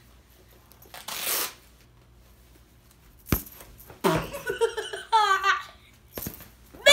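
A boy laughing and giggling in short, choppy bursts through the second half, after a brief rustle about a second in and a sharp knock about halfway.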